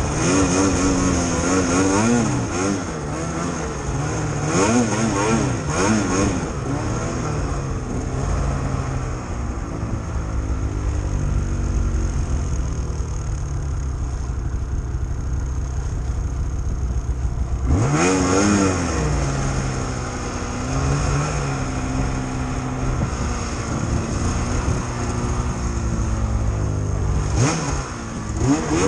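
Snowmobile engine revving up and down while pushing through deep powder snow. It settles to a lower, steadier run about eight seconds in, then revs hard again a little past the middle and surges once more near the end.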